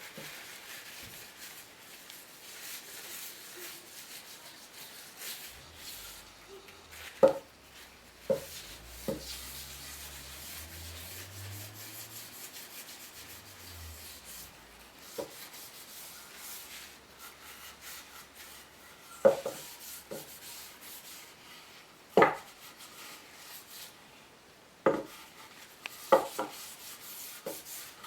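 Steady rubbing on wood by hand, with several sharp wooden knocks at irregular intervals as the pieces are handled and set down.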